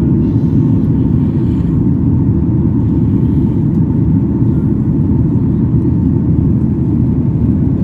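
Steady low roar of a jet airliner's engines and rushing air, heard from inside the passenger cabin during the climb after takeoff, with a faint steady tone above it.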